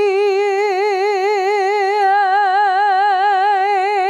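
A woman's singing voice holding one sustained note in her middle range, with a steady, even vibrato. It is a vowel exercise, moving from vowel to vowel on the same pitch without a break, with the tone colour changing about two seconds in.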